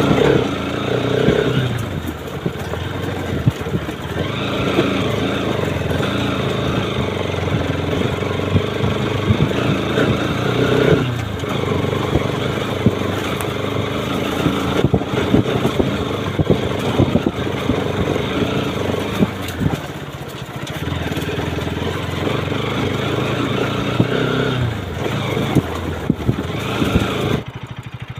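Single-cylinder motorcycle engine running under load on a rough dirt trail, its pitch rising and falling with the throttle, with scattered knocks from the bumpy track. The engine sound drops away sharply near the end.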